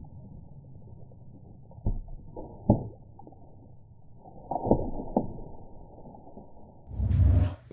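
Slow-motion playback of a .22 LR round striking two water bottles: muffled, deep thuds and knocks as the bullet hits and one bottle is knocked over, the sharpest about a third of the way in. A louder rushing burst comes near the end.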